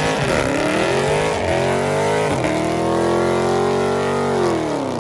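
Car engine revving hard. Its pitch dips and climbs a few times, holds high for a couple of seconds, then drops off near the end as the throttle is released.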